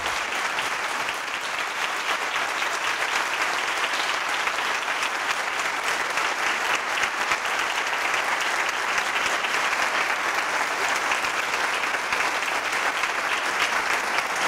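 A large audience applauding, dense steady clapping.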